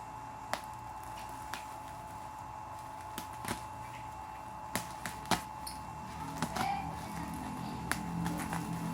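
Scattered sharp clicks and light knocks of packaging and a tool being handled, over a faint steady hum. Music fades in near the end.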